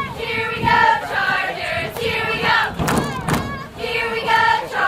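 A group of voices chanting a rhythmic cheer in unison, in phrases with held notes that recur about every two seconds.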